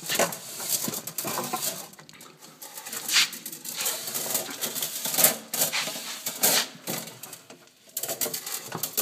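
Handling noise: irregular scrapes, rustles and clicks with several sharper knocks.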